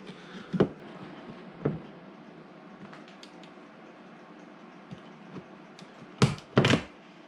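Car exterior door handle knocking and clicking as it is slid backwards and worked free of the door: two light knocks in the first two seconds, then two louder knocks in quick succession about six seconds in.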